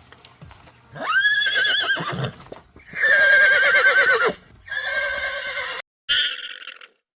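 An animal calling four times in a row, loud, each call with a quavering, wavering pitch and an abrupt cut-off.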